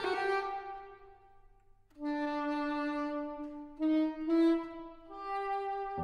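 Saxophone quartet music: a chord fades out within the first second, and after a pause of about a second, slow held chords begin, stepping up in pitch near the middle.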